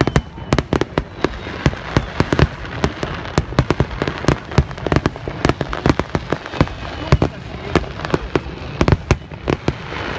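Aerial fireworks display: shells bursting in rapid, irregular succession, several bangs a second, over a constant rumble.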